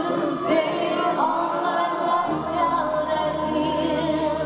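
Live pop concert music with a woman singing, heard as a loud, boomy hall recording.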